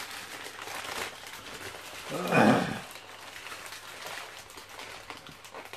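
Paper wrapping rustling and crinkling as a small parcel is unwrapped by hand, with a brief low grunt about two and a half seconds in.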